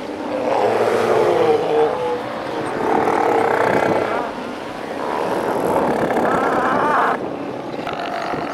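A northern fur seal colony calling: many seals roar and cry at once in a dense, overlapping din of wavering calls. The sound changes abruptly about seven seconds in.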